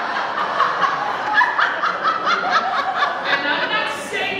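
People laughing, a run of quick chuckling bursts.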